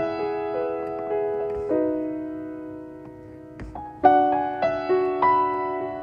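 Gentle background piano music: sustained chords and single notes struck and left to ring out, with a new chord about two seconds in and another about four seconds in.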